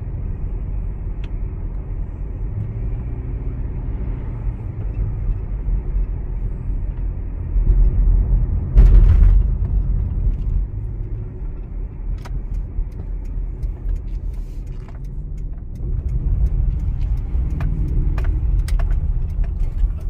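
A car driving, with a steady low engine and road rumble. It grows louder for a couple of seconds around eight to nine seconds in, and a few light clicks come near the end.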